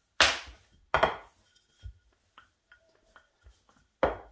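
Sharp knocks and thuds on a kitchen worktop as puff pastry is handled and rolled out with a rolling pin. Strong knocks come just after the start, about a second in and near the end, with a softer one in between and faint ticks.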